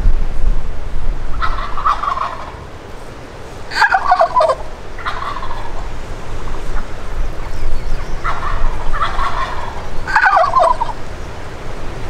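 Wild turkey gobblers gobbling, about six rattling gobbles in a row, each dropping in pitch. Wind rumbles on the microphone underneath.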